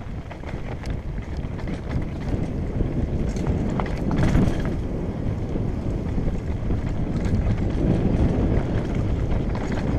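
Mountain bike riding fast down a dusty, stony dirt trail: wind rushing over the microphone, with tyres crunching over loose dirt and the bike rattling over bumps. It gets louder about four seconds in and again near eight seconds.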